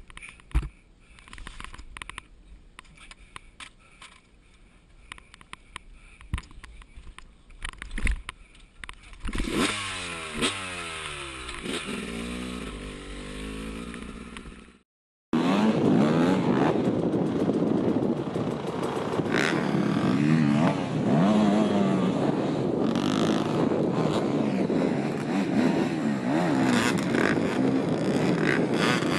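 Scattered clicks and knocks, then about nine seconds in an enduro dirt bike's engine runs, its revs rising and falling as it rides off. After a short break, several dirt bikes rev hard together, loud and continuous, as they are forced up a steep muddy climb.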